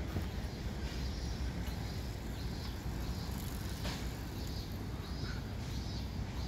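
Steady low outdoor rumble, like wind or distant traffic, with faint high chirps scattered through it and a single click about four seconds in.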